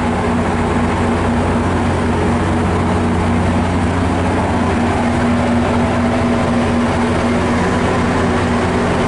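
MARC commuter train's diesel locomotive engine running with a steady drone, over the even rumble of the train's wheels on the rails as it passes.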